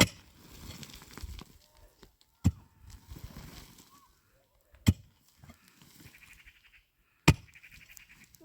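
Four sharp, heavy blows, evenly spaced about two and a half seconds apart, as of a tool being swung and striking something hard.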